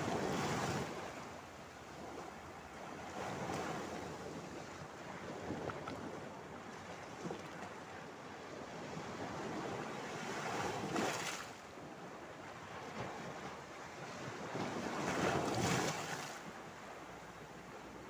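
Small sea waves breaking against and washing over a flat rock shelf, swelling and falling back in four surges, loudest at the start and near the end, over a steady wash of surf.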